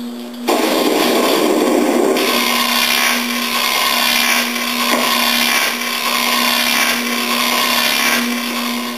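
Loud whirring, grinding noise that starts abruptly about half a second in and runs steadily over a constant low hum, easing off near the end.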